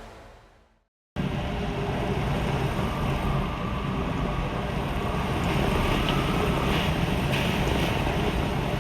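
Background music fades out, then after a moment of silence a steady rushing roar of typhoon wind with a deep rumble on the microphone.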